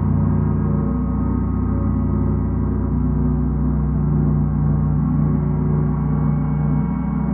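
A gong sounding continuously, a dense wash of many steady overtones over a strong low hum, held at an even level with no separate strikes.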